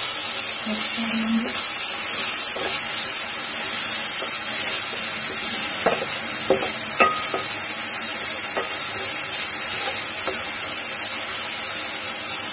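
Minced meat sizzling steadily as it browns in oil in a metal frying pan, stirred with a spatula, with a few scrapes of the spatula against the pan near the middle.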